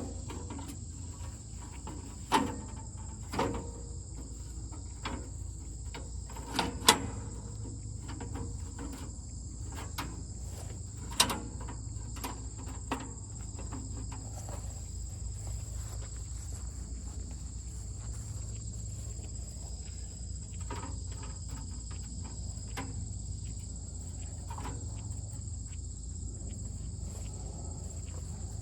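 Insects chirring steadily over a low steady rumble, with scattered sharp clicks and knocks of hand work on a band sawmill, the loudest in the first half.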